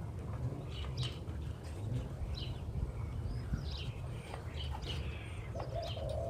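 Birds chirping in short, falling notes about once a second, over a steady low wind rumble on the microphone.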